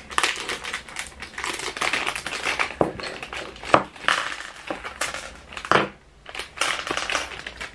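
Clear plastic packaging bag crinkling and rustling as a diamond painting pen is taken out of it, with a few sharp clicks and a brief lull about six seconds in.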